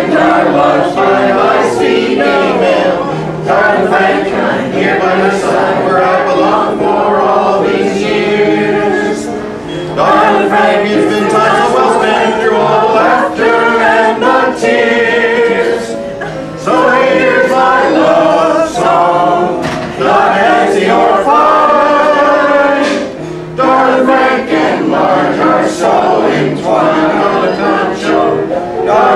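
A group of people singing a song together, men's and women's voices mixed, in sung phrases with short breaks for breath between them.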